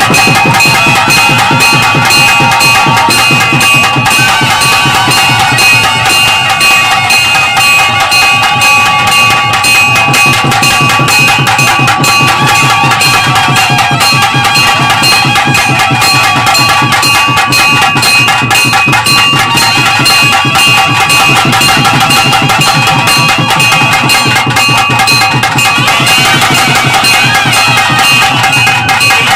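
Live South Indian temple music: a nadaswaram plays a wavering melody over fast, dense drumming, with a steady high drone tone held underneath.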